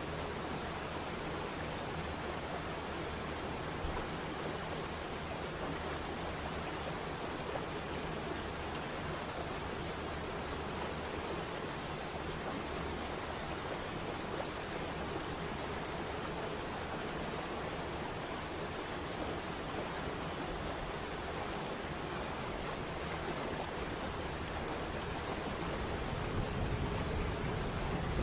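Waterfall and stream water running steadily, with a faint steady high-pitched tone throughout. A low rumble builds near the end.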